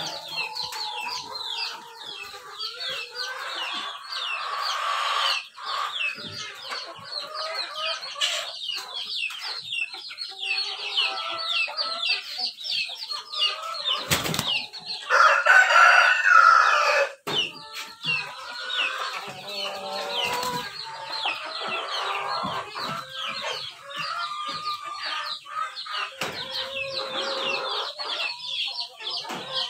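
A flock of heritage chickens, barred Plymouth Rocks and red-brown hens, clucking and calling without a break, with many short, high, falling calls. About fifteen seconds in, a louder burst lasts about two seconds.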